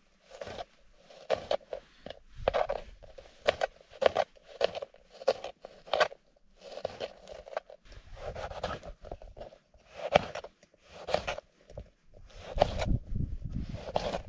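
Knife chopping vegetables on a cutting board: crisp, uneven cuts, one or two a second, with a low rumble at times.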